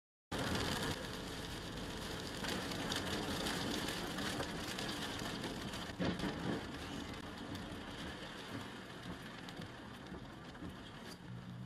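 Steady hiss of heavy rain and tyre spray on a wet highway, heard from inside a moving car, with a short thud about six seconds in.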